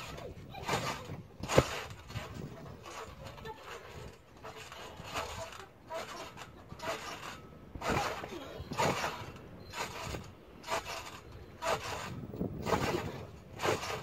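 Trampoline springs creaking and the mat giving with each bounce, in uneven bursts about a second apart, with one sharp knock about one and a half seconds in.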